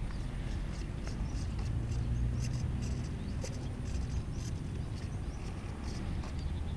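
Low rumble of wind on the microphone outdoors, with scattered faint light clicks.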